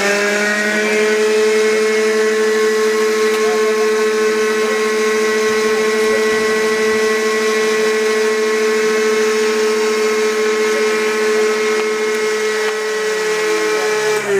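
Electric motor of the Il-14's cowl-flap actuator running with a loud, steady whine as the cowl flaps are driven closed. It winds up quickly just before and winds down right at the end.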